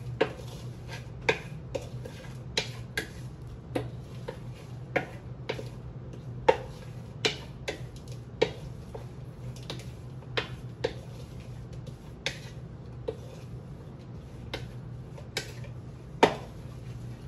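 A wooden spoon stirring seasoned food in a ceramic bowl, knocking on the bowl's side in sharp, irregular clicks about one or two a second, over a steady low hum.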